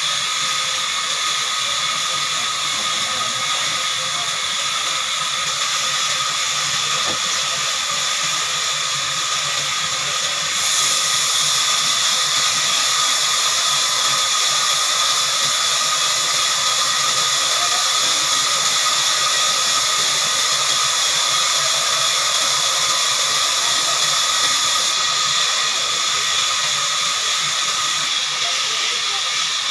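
Heavy-duty horizontal band sawmill running, its blade cutting through a large log: a steady hiss with a high whine, getting louder about ten seconds in.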